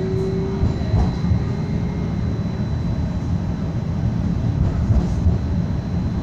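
Cabin noise inside a modern electric streetcar running along its track: a steady low rumble, with a thin high tone held throughout and a low hum that stops less than a second in.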